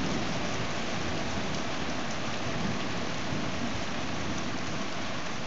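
Heavy rain pouring steadily during a thunderstorm, as an even hiss. The last of a thunder rumble dies away in the first second.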